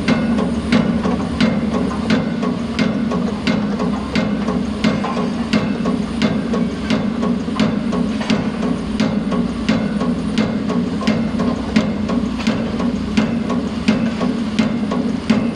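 Piling rig's hydraulic pile hammer striking at a steady pace, about three blows every two seconds, over the steady drone of the rig's diesel engine.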